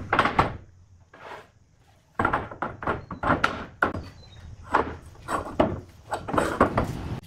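A string of irregular knocks and thuds on wood, about a dozen of them, with a short pause about a second and a half in.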